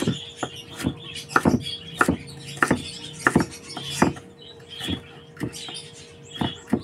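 A kitchen knife dicing cucumber on a wooden chopping board: about a dozen uneven chops, roughly two a second.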